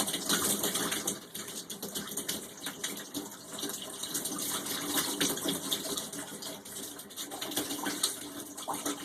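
Shower water running and splashing steadily.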